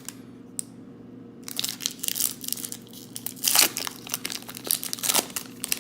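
Plastic wrapping around a pack of baseball cards being crinkled and torn open. It begins after about a second and a half of quiet, and the loudest crackle comes a little past the middle.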